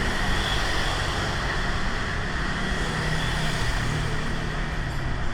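Steady road traffic noise from motor vehicles, with a low engine hum underneath.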